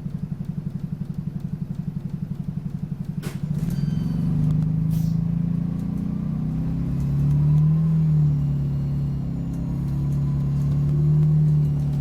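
Optare Solo bus's diesel engine heard from on board. It idles with an even, low pulsing beat, a sharp click comes about three seconds in, and then the engine pulls away louder, its note rising and dipping as the bus accelerates.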